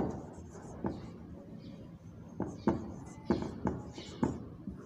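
Marker pen writing on a whiteboard: a string of short, irregular taps and scratches as the words are written.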